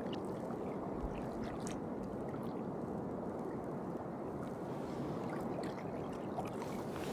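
Sea water lapping and gurgling against the hull of a fishing kayak, a steady low wash with a few faint clicks.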